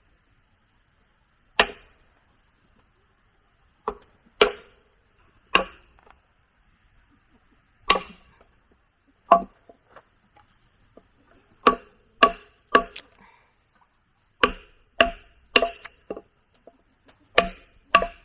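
Wood being chopped with a bladed tool: about fifteen sharp strikes at an uneven pace, coming quicker in the second half.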